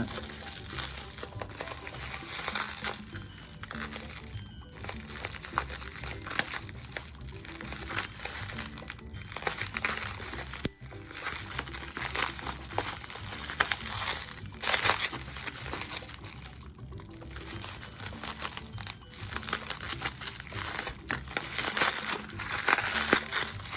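Crinkling and rustling of a tightly wrapped package being opened and unwrapped by hand, over light background music.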